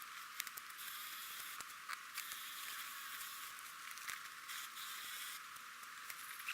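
Faint rustling in leaf litter and brush: scattered small snaps and crackles over a steady hiss.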